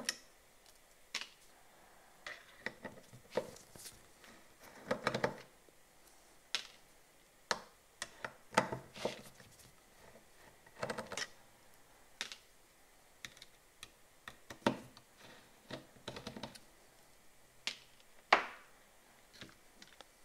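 Irregular small clicks, taps and short scrapes of a screwdriver working screws out of the metal heatsink bracket on a subwoofer plate-amplifier circuit board.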